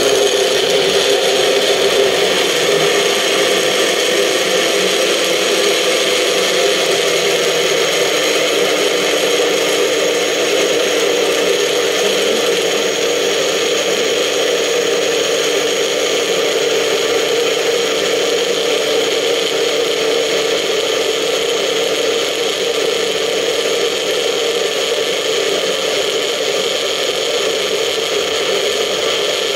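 Personal bullet-style blender's motor running steadily at full speed, the cup pressed down onto the base to keep it going. It is grinding raw beets, carrots and other vegetables into a smooth purée.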